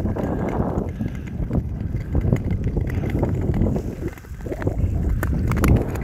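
Wind buffeting the microphone as a low rumble, over the scrape of Nordic touring skate blades gliding on sea ice and scattered clicks of ski-pole tips striking the ice, more of them in the second half.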